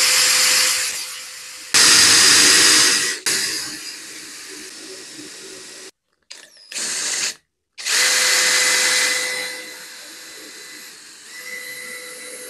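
Cordless drill spinning a square stick of wood through a jig of jigsaw blades, the blades shaving it into a round dowel. The motor's steady whine runs under a loud rasping scrape of wood. It comes in several runs with brief stops, the last easing off to a lighter scrape near the end.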